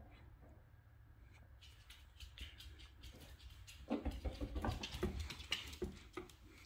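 Quick light clicks and taps of a miniature schnauzer's claws on a hard floor as it goes after a rolling ball, starting about a second and a half in and getting louder about four seconds in.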